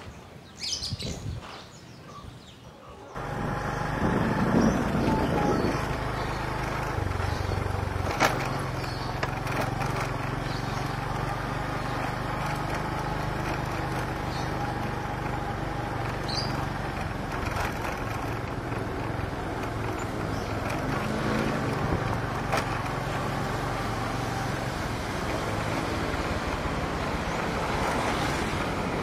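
A motorcycle running along a road, its engine hum mixed with wind and road noise, after a short quieter stretch at the start.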